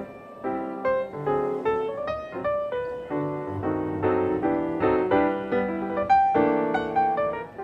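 Background piano music: a lively run of struck notes and chords.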